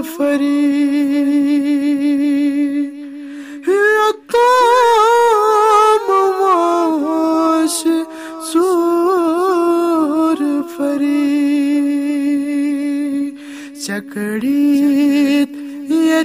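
A man's voice singing a Kashmiri devotional nazm a cappella: long held notes alternating with ornamented, wavering melodic runs.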